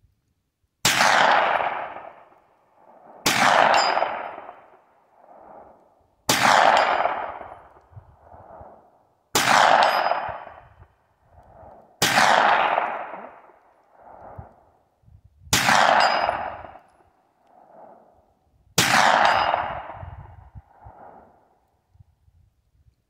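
Kel-Tec Sub-2000 9mm carbine with a muzzle brake, fired seven times in slow, deliberate single shots a few seconds apart. Each shot trails off in a long echo, with a fainter second echo about two seconds later.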